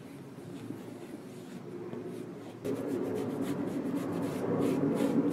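Applicator sponge rubbing Wonder Balsam leather cream into a Dr. Martens smooth-leather boot: a continuous scrubbing rustle that gets noticeably louder about halfway through.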